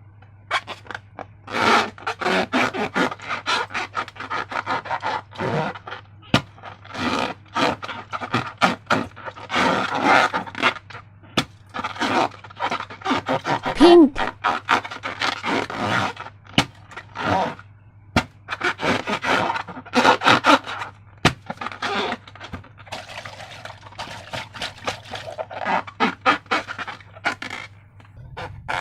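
Hands working with slime-making materials, making irregular scraping, crackling and clicking sounds, over a steady low hum.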